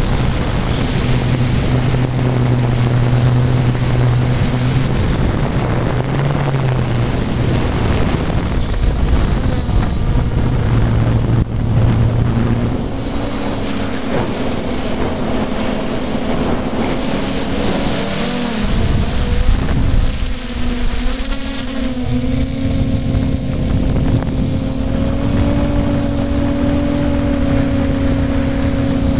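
Motors and propellers of a small remote-controlled camera aircraft in flight: a steady hum over a dense rushing noise. The hum jumps up in pitch about 13 seconds in, wavers briefly a few seconds later as the motor speed changes, then holds at the higher pitch.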